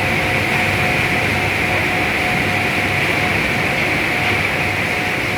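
Steady industrial noise of a heat-treatment furnace line's machinery running: a constant rushing noise with a low hum and a thin steady tone.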